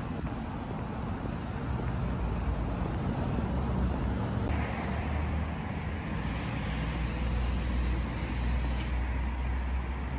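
Steady low rumble of traffic and vehicle noise, with the background changing character about four and a half seconds in.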